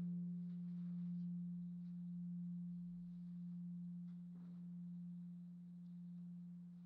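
Heungcheonsa's bronze Buddhist temple bell (beomjong) dying away after a strike: one low steady hum that swells and fades in slow waves a little over a second apart as it slowly decays. This pulsing is the beating typical of a large Korean temple bell.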